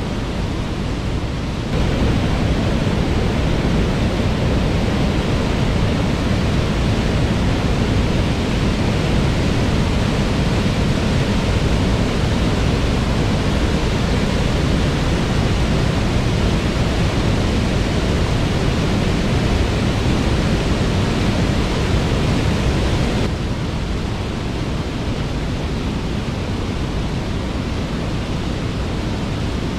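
Waterfall: a loud, steady rush of falling water. It jumps louder about two seconds in and drops back somewhat about three-quarters of the way through.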